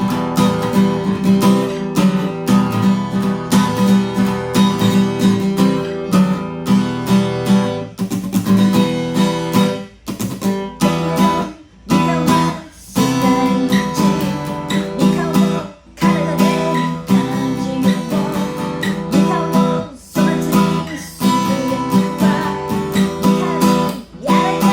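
Acoustic guitar strummed in a steady rhythm, chords ringing, with a few brief stops from about ten seconds in.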